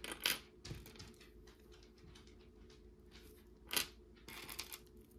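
Faint clicks and rustles of small pieces of vintage costume jewelry being handled, with a sharper click a little under four seconds in and a brief rustle just after it.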